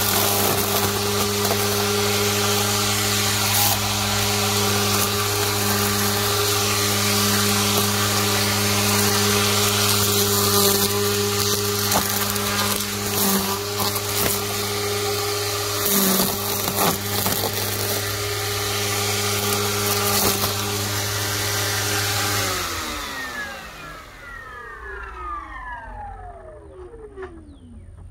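Ryobi 40V HP brushless string trimmer, its motor mounted directly at the head, running at a steady speed while the line whips through dry grass and weeds, with clicks and knocks as it hits debris. About three-quarters of the way through, the motor is let off and winds down, its whine falling steadily in pitch as the head coasts to a stop.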